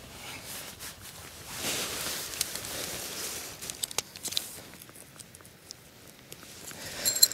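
Tent fabric and groundsheet rustling while tent poles and pegs are handled, with scattered light clicks and knocks. A louder rustle swells about two seconds in, and a cluster of sharper clicks comes near the end as a peg is set into the sand.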